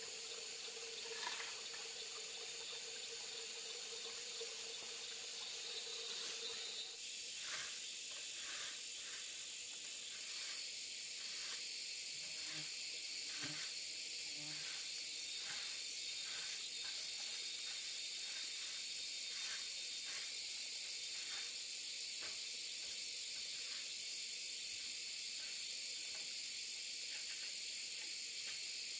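Steady high-pitched chorus of insects such as crickets. Over it, from several seconds in until past the middle, comes a run of short, regular scratchy strokes, about one and a half a second.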